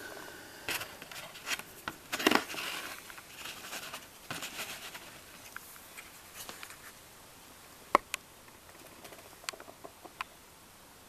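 Handling noise: scattered light clicks and rustles as a copper coin is turned over and handled, with one sharp click about eight seconds in.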